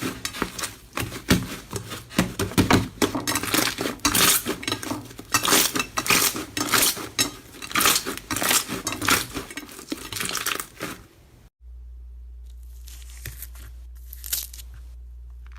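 Slime being squished and pulled by hand, giving dense, irregular sticky crackles and pops. About eleven seconds in it cuts off suddenly, leaving a steady low hum with a few quieter crackles.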